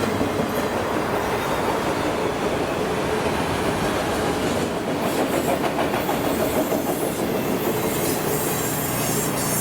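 Freight train cars rolling steadily past, wheels clattering over the rail joints.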